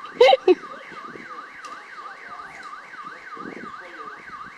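Electronic warbling siren, its pitch sweeping up and down about three times a second without a break.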